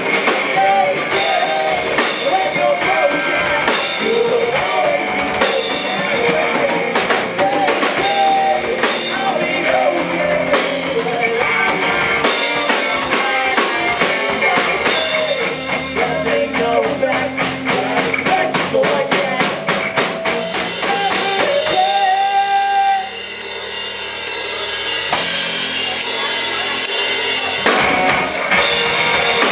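Rock band playing live: a full drum kit and electric guitars in an instrumental passage with a gliding lead melody over them. About two-thirds through the band drops to a quieter, thinner passage for a few seconds, then the full band comes back in near the end.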